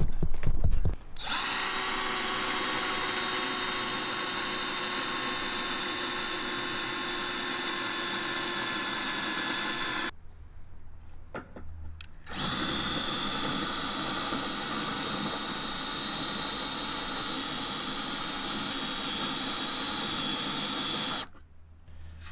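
Cordless drill boring holes through steel angle-iron coping: two long, steady runs of about nine seconds each, separated by a short pause.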